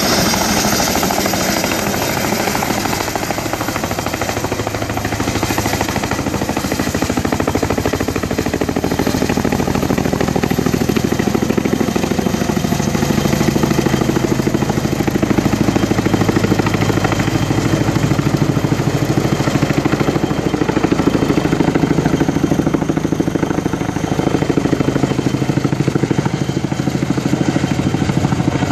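Tandem-rotor Boeing Vertol CH-46 Sea Knight-type helicopter lifting off and climbing with a long line beneath it. Its two rotors beat rapidly and steadily over its running twin turboshaft engines, loud throughout.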